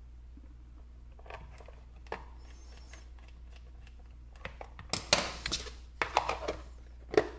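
Plastic camping lamp being reassembled: faint scattered clicks as a small screwdriver drives the screws holding the LED board, then a run of louder plastic knocks and rattles in the second half as the round diffuser cover is handled and fitted on.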